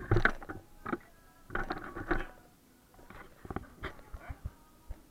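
Scattered knocks and scrapes close to the microphone as a small toy RC car is handled and moved, its motor stopped, with faint voices in the room.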